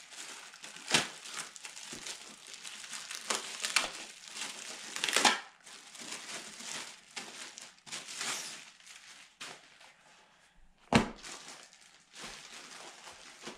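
Packaging crinkling and rustling as a bag accessory is unwrapped and handled, with a few sharp knocks, the loudest about eleven seconds in.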